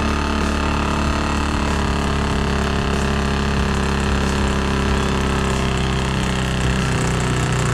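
Sand rail engine running at a steady speed, heard from inside the open cockpit.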